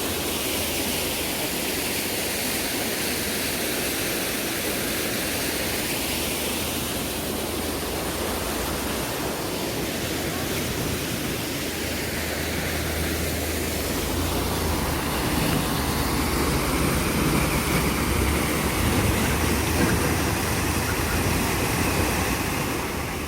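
Small roadside waterfall's water rushing steadily. A low rumble swells in under it from about halfway through.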